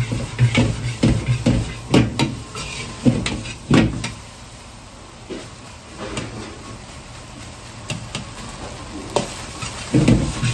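Fried rice sizzling in a wok while a metal ladle stirs it, with a few sharp clanks of the ladle against the wok in the first four seconds, then a steady, quieter sizzle.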